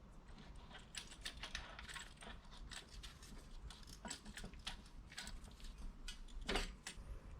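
Faint, irregular light clicks and metal taps from a brake caliper piston retraction tool being worked against the rear caliper, with a slightly louder knock about six and a half seconds in.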